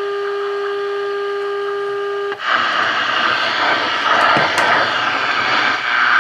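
Tube radio's speaker sounding a steady test tone from the signal generator while it is aligned at the low end of the dial. About two seconds in the tone cuts off and loud static hiss takes over.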